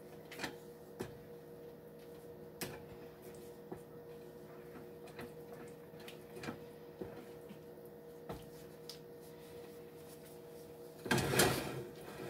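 Wooden spatula stirring thick flour-and-fat roux in a nonstick skillet, with light scattered knocks and scrapes against the pan over a steady low hum. Near the end comes a louder scraping rattle as the skillet is shifted on the electric coil burner.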